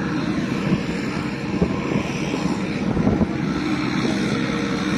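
Tractor engine running steadily while pulling a round baler in the field, with a few knocks about one and a half and three seconds in.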